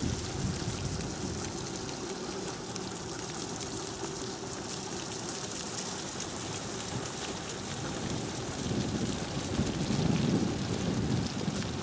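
Steady hiss of rushing water, with a low rumble that swells about nine seconds in and eases off near the end.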